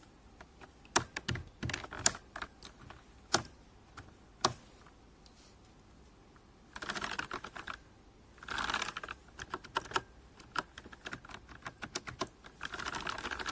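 Typing on a mechanical keyboard with keycaps fitted: a handful of separate, sharp key presses in the first few seconds, then three bursts of rapid typing.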